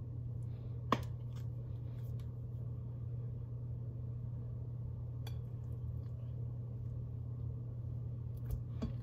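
Steady low hum, with a single sharp click about a second in as the flip-top lid of a plastic spice shaker snaps open. A few faint ticks follow as seasoning is shaken onto raw steak.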